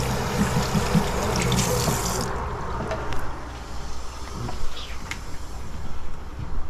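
Tap water running into a stainless-steel sink as hands are rinsed under it, cutting off sharply about two seconds in. A few light knocks follow.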